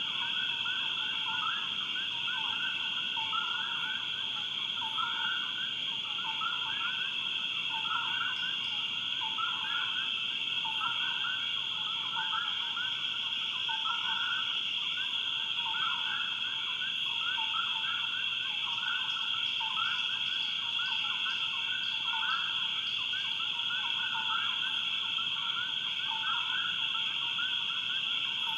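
Swamp wildlife chorus: a steady, high-pitched trilling drone with a lower chirping call repeated about once a second throughout.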